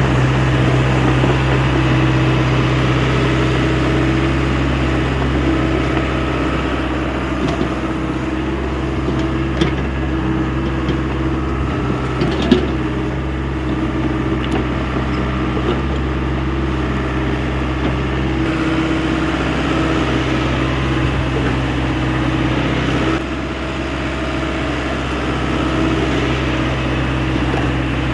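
Hyundai 85A excavator's diesel engine running steadily under working load, its pitch and level shifting slightly a couple of times, with two short sharp knocks about ten and twelve seconds in.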